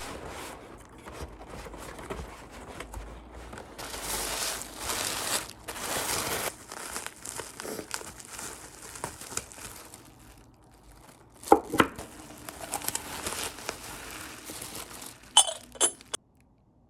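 Packaging being unwrapped by hand: irregular crinkling, rustling and tearing of wrapping, with a few sharp clicks and knocks about two thirds of the way in and again near the end.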